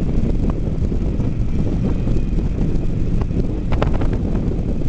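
Kawasaki Vulcan 900 Classic V-twin motorcycle riding along at road speed, engine running steadily under heavy wind buffeting on the microphone. A few faint clicks come near the end.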